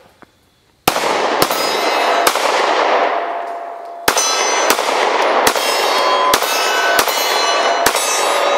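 SCCY CPX-2 9mm pistol firing Armscor rounds: a string of about nine shots, with a pause of nearly two seconds after the third, and steel targets ringing with clear tones between the shots.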